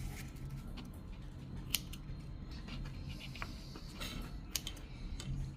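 Scissors snipping: a few sharp, separate cuts over a low room hum.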